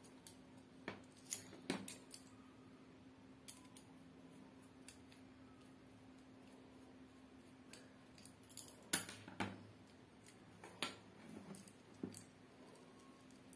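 Scattered small clicks, taps and knocks as a plastic three-pin mains plug, its screws and a screwdriver are handled on a wooden bench, the loudest knock about nine seconds in, over a faint steady hum.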